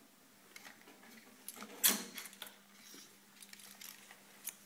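Small clicks and taps of hands working the levers and film-path parts of a 1950s Marin film projector while threading film by hand, with one sharper click about two seconds in. A faint steady low hum comes in just after that click.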